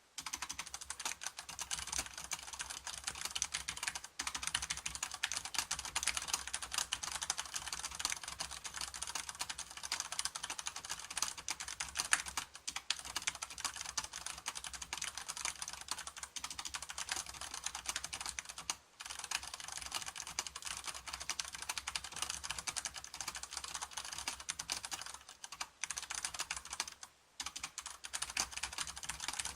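Fast typing on a mechanical keyboard fitted with enjoyPBT dye-sub PBT Cherry-profile keycaps: a dense, steady run of key strokes, broken by a few brief pauses.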